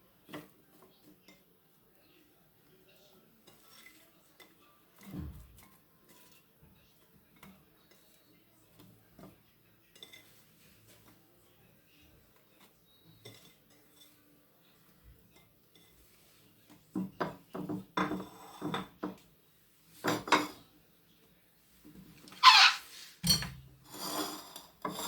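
Kitchen utensil clinking and scraping against a dish as fried potatoes are spread into it. It is faint and sparse at first, then turns into a busy run of clinks and scrapes over the last several seconds.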